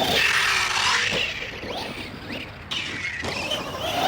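Electric motor of an Arrma Outcast 1/8-scale RC stunt truck whining, its pitch rising and falling with the throttle, with a few short knocks.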